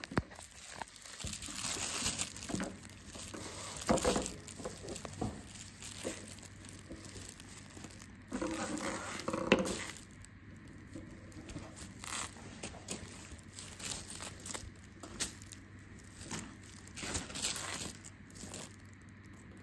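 Futsal jerseys and their clear plastic packaging rustling and crinkling as they are handled, in irregular bursts with small clicks, louder for a couple of seconds about halfway through.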